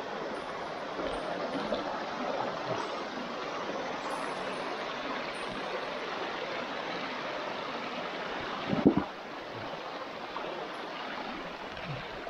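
Shallow mountain stream running over rocks and stones, a steady rushing babble. A brief dull thump about nine seconds in.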